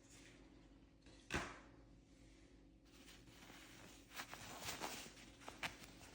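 Faint handling sounds of the stainless steel bracelet and its packaging: one sharp click about a second in, then several lighter clicks and rustles near the end.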